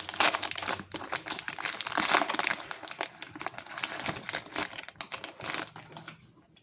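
Foil Pokémon booster pack wrapper crinkling as it is handled and opened, a dense run of crackles and ticks that dies away about six seconds in.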